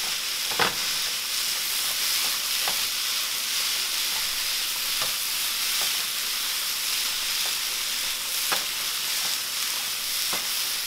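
Sliced onions sizzling in a skillet with a steady hiss, stirred with a spatula that clicks against the pan every couple of seconds.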